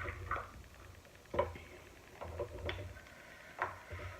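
Close-miked eating sounds from a seafood boil: several short, sharp clicks and smacks about a second apart, from chewing and handling shellfish.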